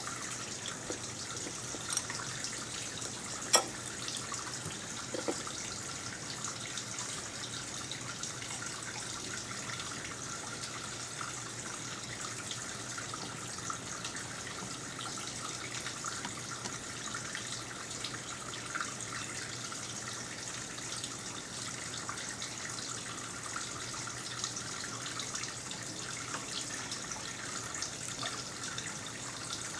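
Water running steadily, a constant hiss with many small splashes, with a sharp click about three and a half seconds in.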